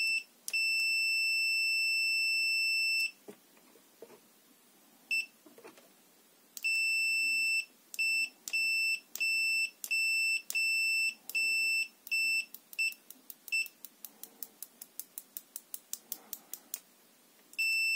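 Owon D35 digital multimeter's continuity beeper sounding as its test probe tips touch: a steady high-pitched beep held for a few seconds, then a run of shorter beeps. These give way to quick faint blips about five a second, and one long beep near the end.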